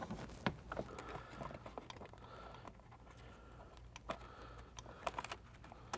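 Faint scattered clicks and light rustling as a thin cord is tucked behind plastic headliner trim by hand. A quiet stretch falls in the middle, then a few more clicks near the end.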